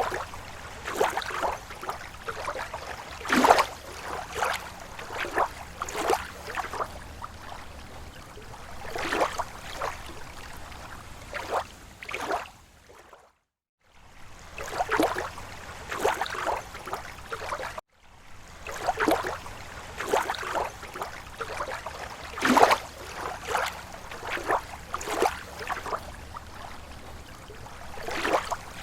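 Small waves lapping against a lake shore: irregular soft splashes and gurgles over a low steady wash of water. The sound drops out completely for about a second around 13 seconds in, then resumes.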